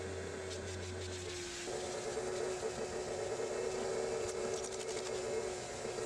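A steady motor hum holding one constant mid-pitched tone, which changes character about one and a half seconds in. In the second half there are a few short hissing spritzes from a trigger spray bottle.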